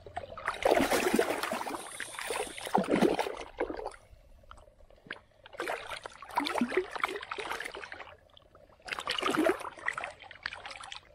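Shallow muddy pond water splashing and sloshing as a large carp is grabbed by hand, in three bouts with short pauses between, the first the longest.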